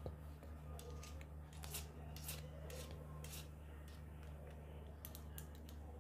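Irregular light metallic clicks and scraping of an Allen key turning in the bolts of a Promax mechanical disc-brake caliper as they are loosened, over a faint steady low hum.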